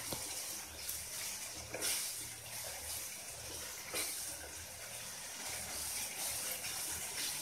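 Thick onion-tomato masala sizzling in a kadai over a high flame while a wooden spatula stirs it, with a few sharper scrapes of the spatula against the pan. The masala is being fried down (bhuna) on high heat.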